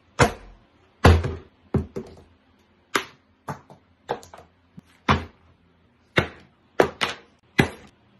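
Pencil drawing on a spiral sketchpad lying on a table, heard as about a dozen sharp, irregularly spaced taps and thunks, each dying away quickly.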